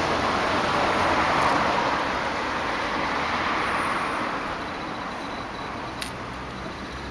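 A passing road vehicle's rushing road noise, loudest in the first two seconds and fading away. A single faint click about six seconds in.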